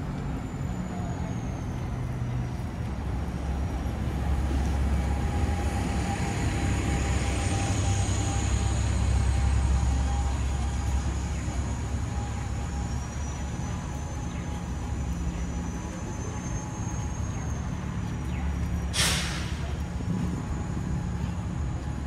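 Street traffic with a heavy vehicle's engine rumbling, loudest for several seconds, under a faint high whine. Near the end comes one short, sharp hiss of air brakes.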